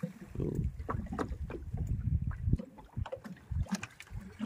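Small open boat at sea: an uneven low rumble of wind and water against the hull, with scattered sharp knocks and clicks.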